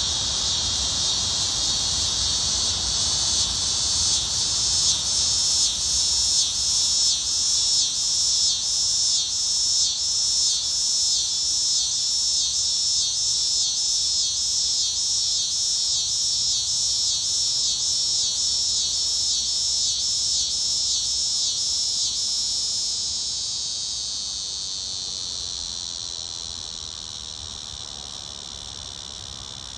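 Cicada calling: a loud, high buzz that pulses in an even rhythm, about twice a second, then settles into a steady drone that fades away over the last several seconds.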